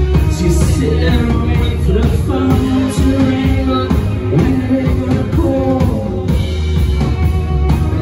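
A rock band playing live: electric guitars, bass guitar and drum kit, with a man singing over them.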